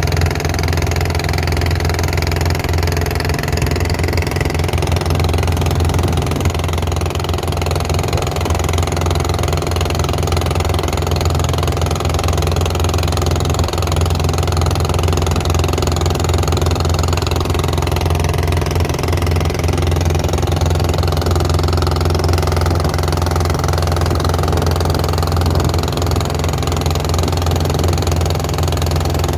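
Long-tail boat engine running steadily under way, loud and even, with no change in speed.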